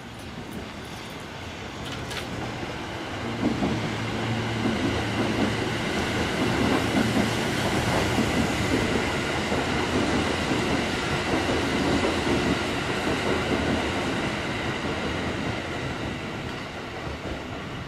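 Kintetsu limited-express electric train passing through a station without stopping. Its running noise swells over the first few seconds, stays loudest while the cars go by, then fades near the end as it moves away.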